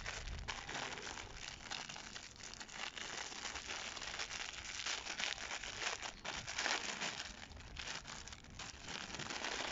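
Thin clear plastic bag crinkling and crackling in the hands as it is handled, an irregular run of small crackles.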